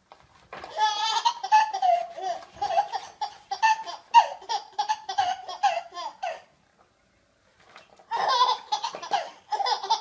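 A baby laughing in quick, rhythmic, high-pitched belly laughs, a long run for about six seconds, then a short pause and another fit of laughter near the end.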